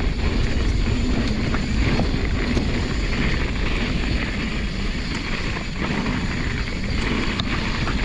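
Wind buffeting an action camera's microphone as a mountain bike rolls along a dirt singletrack, a steady rush with tyre noise and scattered small clicks and rattles.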